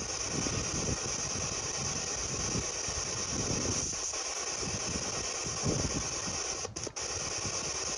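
Steady static hiss with a choppy crackle underneath, cutting out briefly about seven seconds in.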